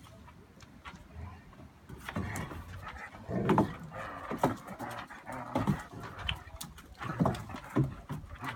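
A dog, fairly quiet at first, then making a run of short, irregular sounds from about two seconds in.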